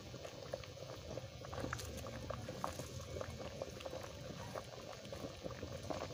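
A pot of fish-head broth at a simmering boil, bubbling with many small irregular pops.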